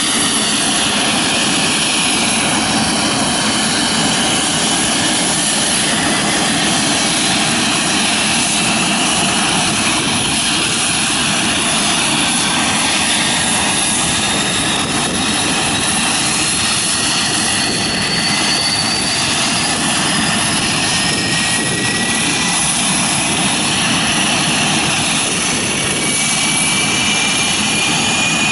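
Lockheed Hercules' four Allison T56 turboprop engines running on the ground with the propellers turning: a steady, even turbine and propeller noise, with a thin whine that slowly rises in pitch through the second half.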